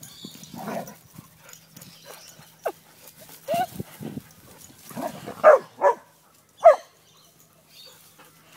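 Dogs barking while they chase each other in play: a string of short barks, the loudest coming close together in the second half.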